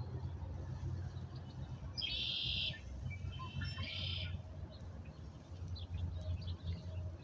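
Red-winged blackbirds singing: two buzzy, trilling songs about a second and a half apart, with scattered short chirps, over a steady low rumble.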